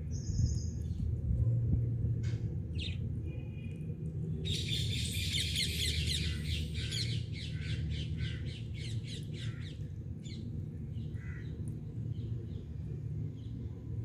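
Indian ringneck parakeets (rose-ringed parakeets) calling: a few short chirps, then from about four seconds in a run of rapid harsh squawks, about four a second, that tails off into scattered softer calls.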